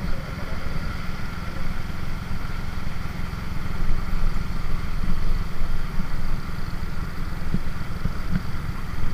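Motorcycle running at cruising speed, its engine under a heavy low rumble of wind buffeting the microphone.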